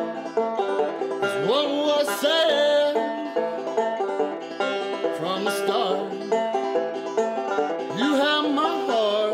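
A banjo being played in a bluegrass/country style, with a man singing along in sliding, drawn-out phrases.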